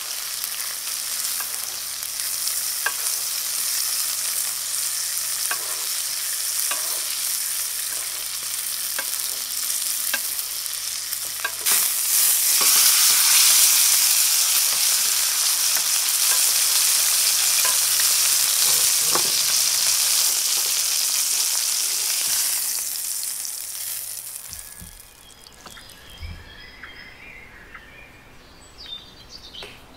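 Ribeye steak sizzling in butter in an enamelled cast-iron pan, a steady hiss dotted with small crackles and clicks as it is basted. Partway through the sizzle jumps louder, then dies away a few seconds before the end.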